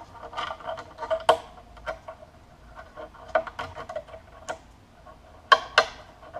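Irregular light metallic clicks and taps of a wire hook tool and the AK hammer springs against the hammer and steel receiver as the springs are levered back onto the hammer. Each click rings briefly, with two sharper clicks in quick succession near the end.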